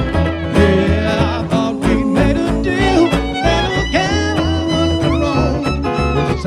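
Bluegrass band playing an instrumental passage: a fiddle carries the melody with sliding notes over a steady bass beat.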